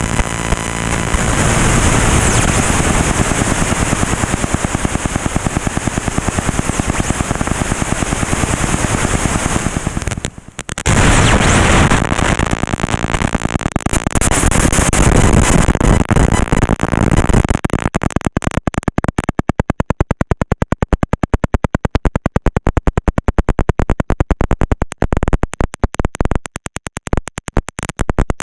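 Loud crackling noise from a GoPro Hero 5 Session's faulty audio recording. A brief drop comes about ten seconds in, and from about eighteen seconds the noise breaks up into a rapid stutter of clicks, the sound issue the camera is showing.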